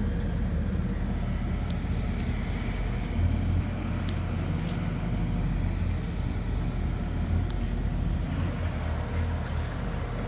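CEM LabWave 9000 microwave moisture analyzer running a drying cycle: the steady low hum of its fan, with a few light clicks.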